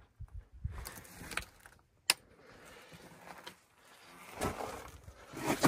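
Footsteps crunching on rocky, gravelly ground, with scattered knocks and rubbing from handling a camera pole. A single sharp click comes about two seconds in, and the crunching grows louder near the end.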